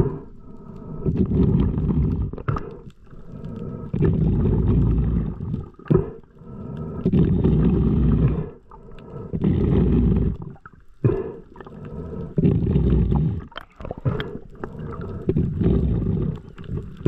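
Muffled water noise picked up by an underwater camera, coming in heavy surges about every three seconds.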